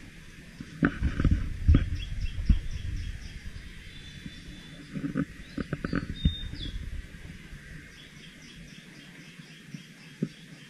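Birds chirping outdoors in runs of short repeated high notes, with a couple of brief whistled notes around the middle. Low bumps and rumbles on the microphone are the loudest sounds in the first few seconds and again around the middle.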